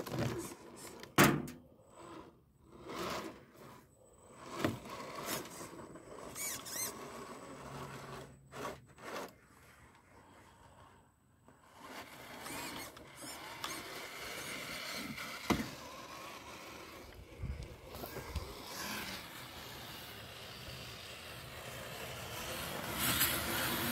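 RC rock crawler's small electric motor and geared drivetrain whining in stops and starts as it crawls over rock and dirt, with scattered clicks and knocks from the chassis and tires. It runs more steadily in the second half.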